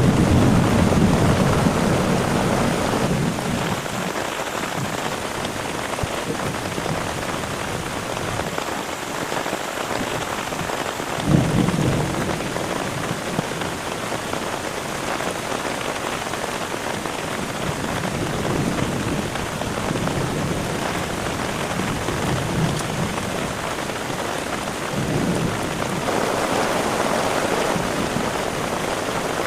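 Heavy rain falling steadily, with low rolls of thunder: one at the start, a sharper clap about eleven seconds in, and further rumbles past the middle and near the end.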